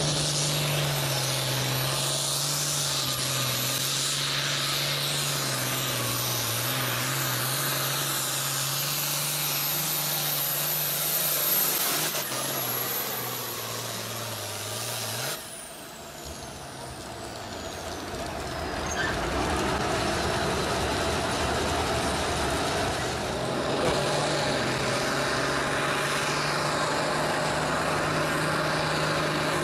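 International Harvester tractor's diesel engine at full throttle pulling a weight-transfer sled, with a high whistle over it. About twelve seconds in the engine's pitch sags under the load, then the sound cuts off and the whistle falls away. From about twenty seconds in, a tractor engine runs steadily again.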